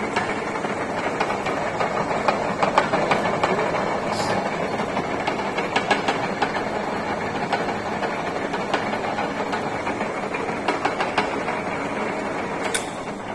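Old metal-turning engine lathe being test-run, its chuck spinning: a steady, dense mechanical whirr with many small clicks and knocks, dropping off near the end.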